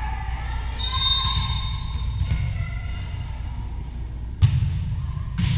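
A referee's whistle blows once, held for about a second, then a volleyball serve is struck hard by hand about four seconds in, with a second hit of the ball just before the end.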